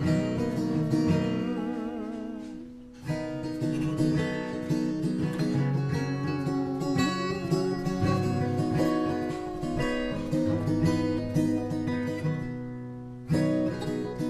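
Guitar playing chords. An opening chord rings with wavering, vibrato notes and fades out, playing resumes about three seconds in with picked notes and changing chords, and a new strum starts near the end.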